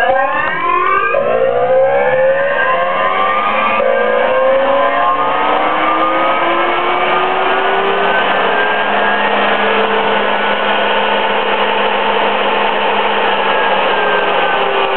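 AC induction motor driven by a homemade variable-frequency inverter, giving a loud whine of many tones at once over a hiss. The tones rise steeply in the first second, then drift slowly in pitch as the drive runs.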